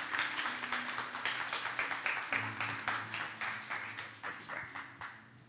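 Church congregation applauding, the clapping thinning out and dying away toward the end.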